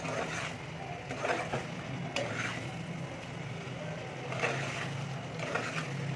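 Metal spoon stirring a thick chicken karahi gravy in an aluminium pot, with intermittent scrapes and clinks against the pot's side and bottom, over a steady low hum.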